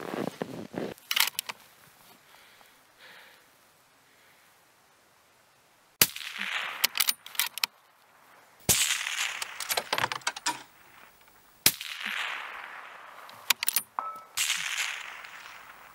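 A suppressed bolt-action rifle fires three shots about three seconds apart. Each shot has a sharp crack and a short tail, followed by a few lighter clicks as the bolt is worked. A brief rustle of clothing and movement in the snow comes at the start.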